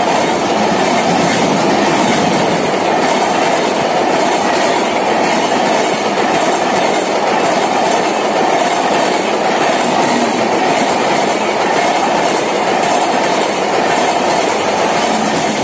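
Humsafar Express passenger coaches passing close by at speed: a loud, steady rush and clatter of wheels on the rails.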